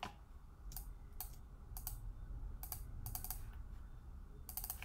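Computer keyboard and mouse clicks, irregular single taps and short quick runs, over a faint low hum.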